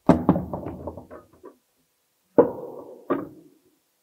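Sharp knocks on a wooden wall panel, a quick run of knocks in the first second and a half and then two more, about two and a half and three seconds in, each with a short hollow ring.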